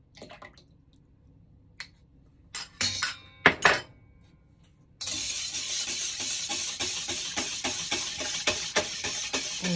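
A few sharp clinks of a spoon against a stainless steel bowl. About halfway through, a wire whisk starts beating a thin liquid in the bowl, its wires clattering against the metal in a rapid, steady rhythm.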